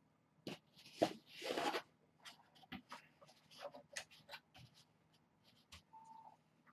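Faint clicks and scrapes of a spoon on a plate of kitten food being mixed, with two brief rustling scrapes about a second in and a short kitten mew near the end.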